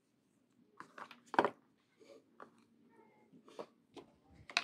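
Handling noise: a coiled plastic USB-C cable and a charging adapter being handled and set down on a table, a series of short rustles, taps and clicks, the loudest about a second and a half in.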